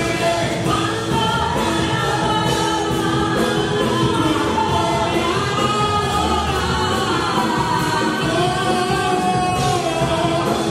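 Live Christian worship music: a church band with electric bass, electric guitar, keyboards and drums, with several voices singing together.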